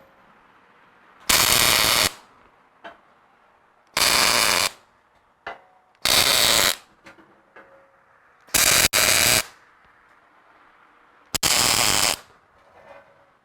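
Arc welder laying tack welds on a steel bumper: five short bursts of crackling arc noise, each under a second, about every two to three seconds, the fourth broken briefly in the middle.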